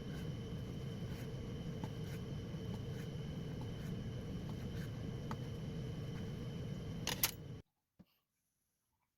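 Indoor room tone with a steady low hum and scattered faint clicks, a quick run of clicks about seven seconds in, then the sound cuts off suddenly to silence, broken by one more click a moment later.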